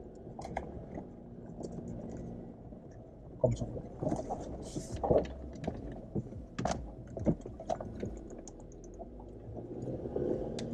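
Jeep Wrangler JL heard from inside the cabin, its engine running low and steady as it crawls over a rough trail, with repeated knocks and rattles from the body and suspension starting a few seconds in.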